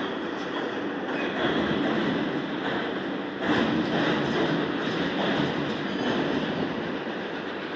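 Steady machinery noise and metallic clatter in a manufacturing workshop, with a louder clatter about three and a half seconds in.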